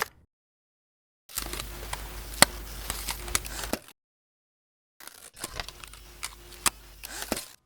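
Two bursts of a gritty, crackly sound effect, each about two and a half seconds long: a steady hiss with scattered sharp clicks over a low hum. Each starts and cuts off suddenly.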